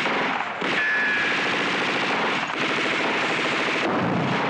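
Rapid, sustained machine-gun fire, broken by short pauses about half a second in and again midway, with a heavier burst near the end.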